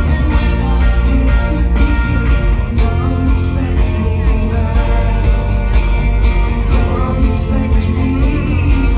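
Live band playing a song on electric and acoustic guitars, with a heavy low end, heard from the audience.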